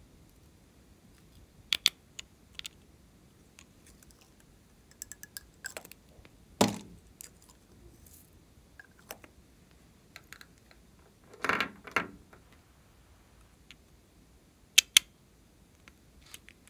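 Small plastic cosmetic containers being handled and opened by hand: scattered clicks and taps of caps and lids, with a sharp double click near the start and another near the end, and two brief, fuller handling sounds about a third and two-thirds of the way through.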